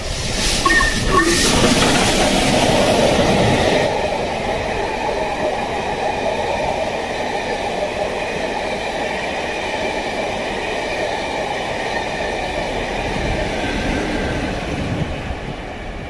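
LMS Royal Scot class steam locomotive 46100 Royal Scot running through the station at speed, loudest for the first few seconds as the engine passes. Its train of coaches then rolls by with a steady wheel-on-rail noise that fades near the end as the rear of the train goes past.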